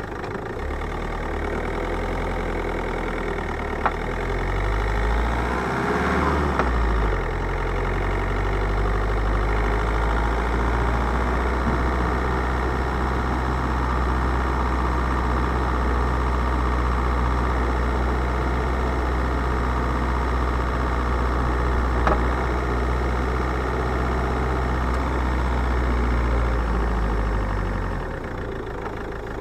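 2008 Ford Mondeo Mk4 running with a steady low engine and road rumble that shifts in pitch about six seconds in, with a couple of brief sharp knocks, one about four seconds in and one later on.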